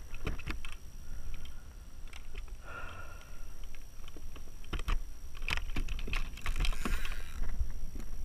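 Irregular clicks, knocks and rustles of a fish and a plastic measuring strip being handled against a plastic fishing kayak, over a low rumble of wind on the microphone.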